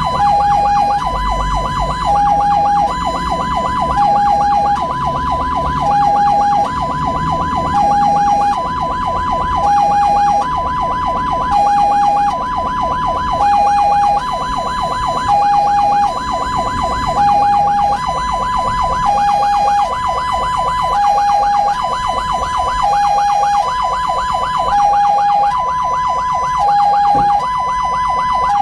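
Ambulance's electronic two-tone hi-lo siren, switching between a higher and a lower tone about once a second, over a low vehicle rumble.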